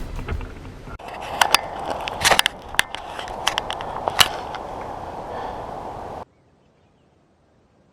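Wheelchair wheels rolling over rough forest ground, with a steady scraping rumble and several sharp cracks and clicks. It stops abruptly about six seconds in.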